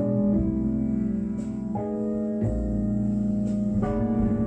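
Song playing from the radio through the tube amplifier's loudspeaker: sustained keyboard chords that change every second or two.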